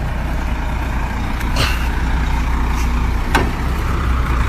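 Heavy truck's diesel engine running with a steady low rumble, with two brief sharp noises about a second and a half and three seconds in.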